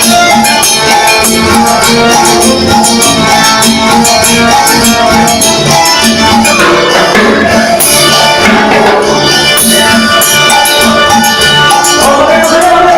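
Latin dance music played on an electronic keyboard with percussion, keeping a steady beat.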